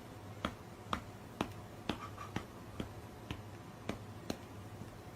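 A run of sharp, evenly spaced clicks, about two a second, over a faint low hum.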